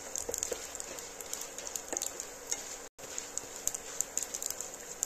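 A tempering of chana dal, urad dal, cumin and mustard seeds sizzling in hot oil in a nonstick pan, with many small crackles and ticks. A black slotted spatula stirs them at first. The sound cuts out for an instant about three seconds in.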